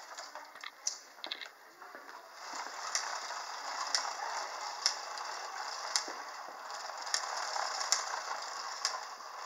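VEX metal pull toy rolling on its treads, its chain drive rattling steadily. About once a second there is a sharp clack as the dog's follower drops off the cam.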